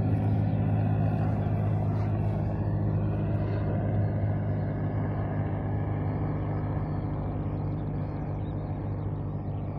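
Helicopter flying past: a steady low drone made of several held tones, slowly fading as it moves away.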